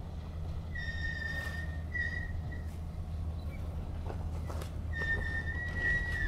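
Freight cars rolling past with a steady low rumble, and a high steady squeal of steel wheel flanges grinding against the rail on a curve. The squeal starts about a second in, breaks off for a couple of seconds, then returns about five seconds in.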